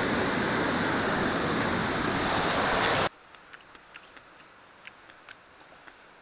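Camping stove burning under a pot with a steady rushing roar that cuts off abruptly about three seconds in. A quiet stretch with faint scattered small ticks follows.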